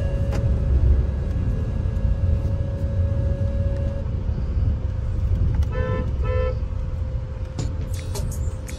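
Low, steady road and engine rumble inside a moving car's cabin. A horn gives two short toots about six seconds in.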